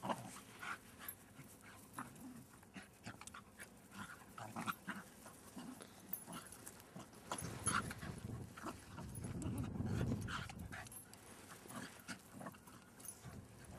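Two small dogs play-fighting on grass, with short dog noises and scuffling. There is a longer low grumble about eight to eleven seconds in.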